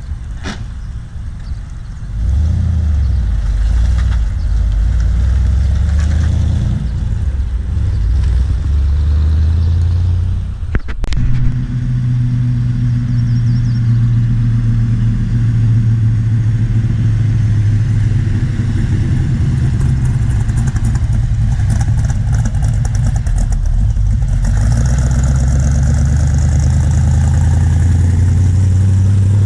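A car engine running close by with a deep, steady low rumble, louder from about two seconds in. There is a single sharp knock at about eleven seconds, after which the engine settles into an even idle.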